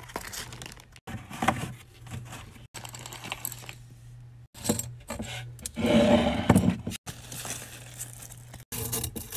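Nail supplies being handled by hand: plastic wrapping crinkling, wooden sticks clattering together and nail files rustling in plastic bags, over a low steady hum. The sound cuts out abruptly several times between short clips, and the handling is loudest about six seconds in.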